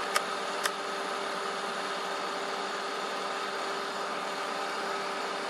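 Steady mechanical hum and hiss, with a few faint clicks in the first second.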